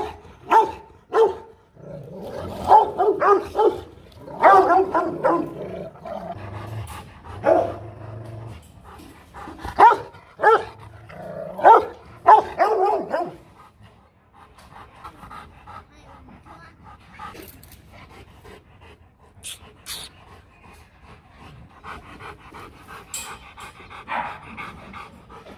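Adult male Rottweilers barking at a rival dog, in loud, deep, separate barks for about the first half. After that they settle to quieter panting.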